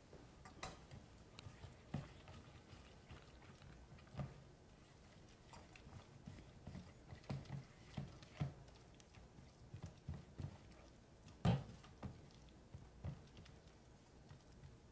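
Silicone spatula stirring and scraping a thick fritter batter in a stainless steel mixing bowl: faint, irregular soft knocks and scrapes against the bowl, one somewhat louder knock about two-thirds of the way through.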